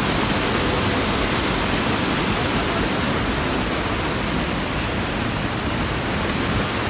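Small waterfall and river rapids rushing over rocks: a loud, steady wash of water noise.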